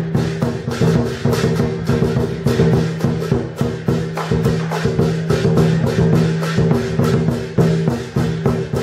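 Lion dance accompaniment music: drum and cymbals struck in a fast, even rhythm, several strikes a second, over steady low ringing tones.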